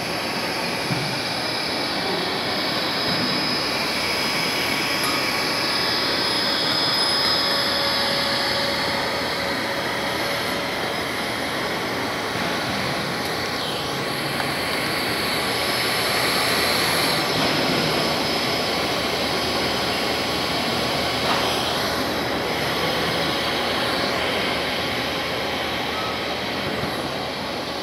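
Steady rushing drone of electric blower machinery, with a few faint thin tones held over it. The level swells and dips gently.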